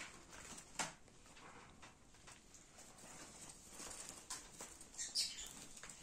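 A small white parrot held in the hands gives one short, high chirp that falls in pitch, about five seconds in. Around it are faint soft knocks and rustles from handling the bird against the table.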